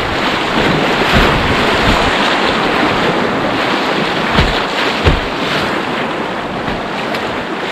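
River rapids rushing and splashing around a kayak's hull, with wind on the microphone. A few brief low thumps stand out, the strongest about four and a half and five seconds in. The rush eases slightly near the end.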